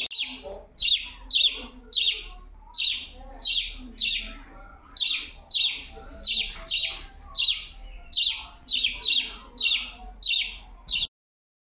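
Young budgerigar chirping over and over: short, sharp, high calls about two a second, each falling slightly in pitch. The calls cut off abruptly near the end.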